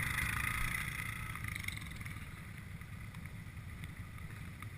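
ATV engine running at low speed, a steady low rumble with a higher whine that eases off over the first couple of seconds, with wind on the microphone.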